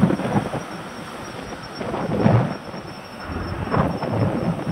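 Wind buffeting the microphone of a camera on a moving bicycle: a low, rushing rumble that swells and drops in uneven gusts, loudest near the middle.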